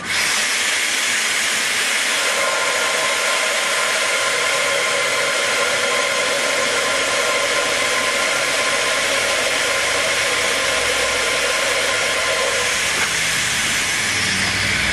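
Vacuum cleaner switched on suddenly and running steadily, a loud hiss with a whine in it, its hose held to the copper pipe to suck down the piston of a model beam engine's cylinder so that it lifts the weighted seesaw.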